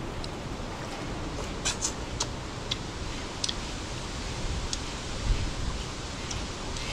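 Steady wind noise on the microphone, with a gust buffeting it about five seconds in, and a few small sharp clicks from eating and handling cups and dishes around two to three seconds in.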